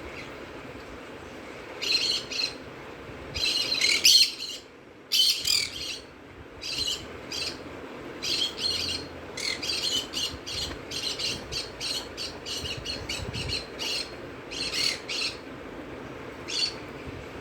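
Recorded bird chirps played through a phone's speaker: many short, high chirps in irregular clusters, coming faster for a few seconds in the middle, over a faint steady hum.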